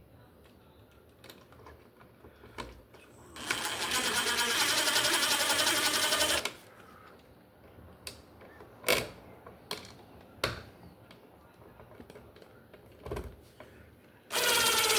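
Cordless drill-driver with a Phillips bit running a receptacle's mounting screws into the electrical box: a steady motor run of about three seconds starting about three seconds in, a few sharp clicks and taps, then a second run starting near the end. The screws are driven most of the way by the driver and finished by hand so they don't strip.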